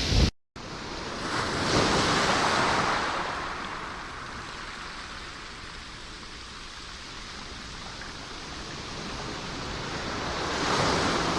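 Ocean surf: a wave washing in about two seconds in and ebbing away, then the next one building near the end.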